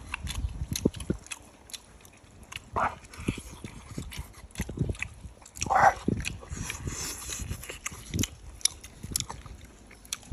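People eating crispy-skinned roast suckling pig: scattered crunches and wet smacks of biting and chewing, with two short vocal sounds about three and six seconds in.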